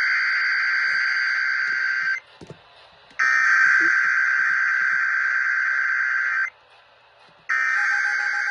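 Emergency Alert System SAME header: digital data bursts, two of about three seconds each and a third starting near the end, with a second of silence between them. They mark the start of a new emergency alert broadcast. A faint, intermittent beeping tone joins during the third burst.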